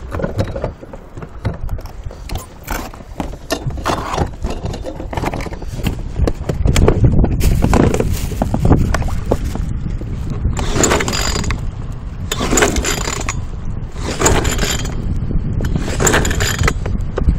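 Small outboard motor's recoil pull-starter yanked four times, about two seconds apart, each pull a short mechanical whirr, with handling knocks before. The engine does not catch: its carburettor is short of fuel to fire.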